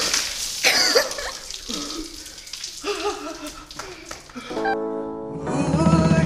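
Ice water from a bucket splashing down onto a man, then the man yelling and gasping from the cold. About four and a half seconds in, background music with guitar starts.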